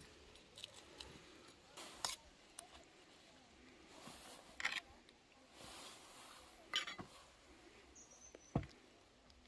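Flatbread being torn into a stainless steel bowl, then a metal spoon scraping and clinking against the bowl as broth is spooned over the bread. The sounds come as a few separate clinks and scrapes, about two seconds apart, with a low knock near the end.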